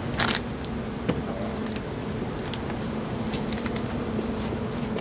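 A steady low hum inside a van's cabin, with a short rustle about a quarter second in and a few light clicks and ticks, the sharpest about a second in and just past the three-second mark.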